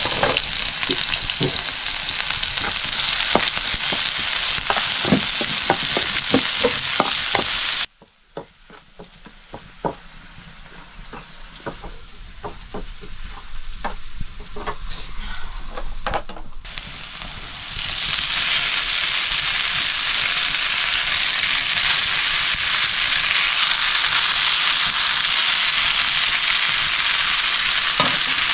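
Food frying in oil in a pan, a steady sizzle with the clicks of a utensil stirring it. About eight seconds in, the sizzle drops suddenly to faint crackling. It builds back up over the next ten seconds into a loud, steady sizzle.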